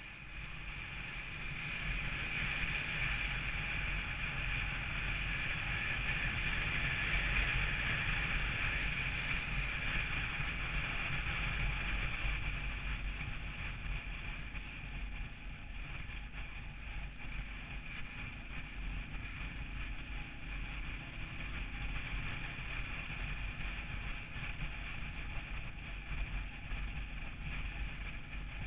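Vehicle driving on the road: steady engine rumble with tyre and wind noise, a little louder for the first dozen seconds and easing off after that.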